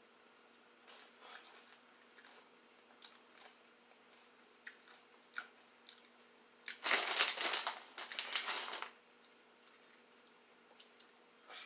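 Snacking on tortilla chips with salsa from a jar: a few faint clicks and scrapes, then about two seconds of loud crinkly crunching past the middle, and one short crackle near the end.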